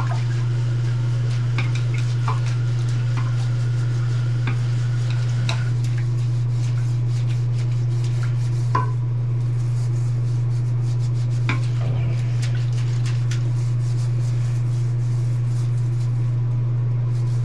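Loud steady low hum with scattered light clicks and scraping, from work clearing a toilet clogged with wipes.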